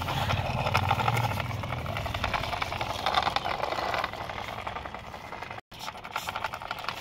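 Plastic toy truck rolling across rough concrete, a steady fast rattle with a low hum for the first couple of seconds, cut off briefly near the end.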